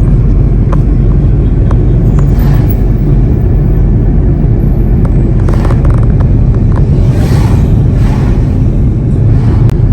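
Car driving along a road, heard from inside the cabin: a steady loud rumble of engine and tyres, with a few short swells of rushing noise.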